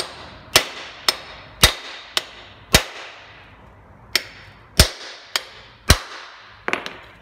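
Repeated sharp metal-on-metal blows, about every half second with a short pause midway and a quick double blow near the end. A new bearing is being driven onto the Renault Duster 4x4 transfer-case intermediate shaft, struck through the old bearing so the force bears on the inner race.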